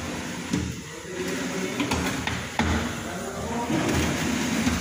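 Aluminium cabinet drawers being pulled open and pushed, with a few sharp clicks and knocks, over people talking in the background.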